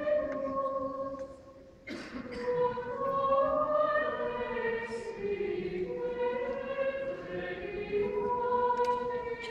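A choir singing a slow sacred chant in a large church. The singing dies away about a second in, and a new phrase begins just before two seconds.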